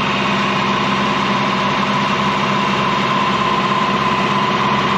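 Generator engine running at a steady speed: a constant hum with a steady higher whine over it.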